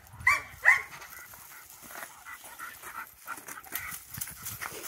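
Dog giving two sharp, high yips in quick succession, then panting excitedly.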